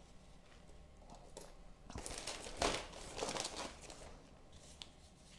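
Plastic bags crinkling and rustling as hands rummage through plastic packaging, for about a second and a half around the middle, with a few small clicks of handling.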